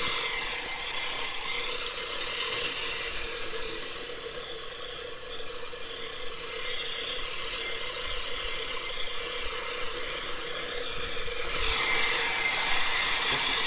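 Manual push reel mower being pushed through grass: its spinning reel blades whir and rattle against the cutting bar, getting louder near the end.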